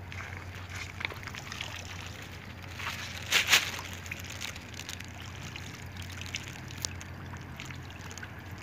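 Shallow seawater trickling and sloshing among shoreline rocks, with a short louder splash about three and a half seconds in and a faint steady low hum underneath.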